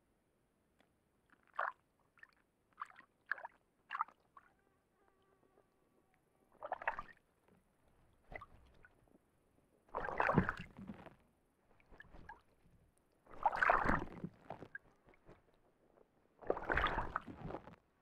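Ural owl bathing in a shallow pool: a few small dips and splashes in the first few seconds, then four heavier bouts of splashing about a second each as it churns the water.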